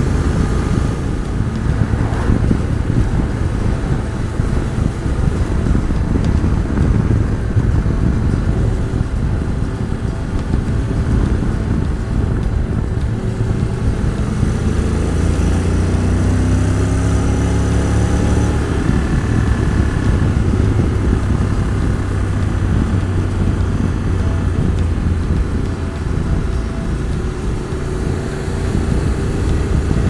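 Honda NC750X's parallel-twin engine running under way with steady wind and road noise. About fourteen seconds in, the engine note climbs for a few seconds as the bike accelerates.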